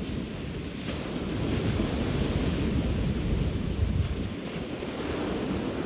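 Wind buffeting the microphone as a steady low rumble, over the wash of sea waves on a shingle beach.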